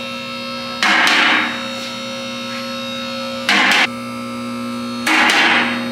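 Electric hydraulic pump motor of a two-post vehicle lift running with a steady hum as the lift arms raise a heavy steel pipe. Three louder, harsh rushes of noise break over it, about one, three and a half and five seconds in.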